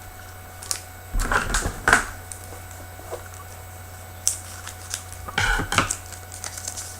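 Hockey trading cards being handled: two short spells of quick flicking and rustling as the cards are slid and flipped against one another, with a few single ticks between them.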